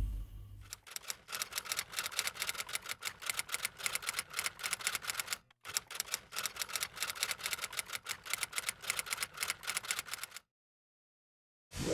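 Rapid typewriter-like key clicks, several a second, as a sound effect. They break off briefly about five and a half seconds in and stop about ten seconds in.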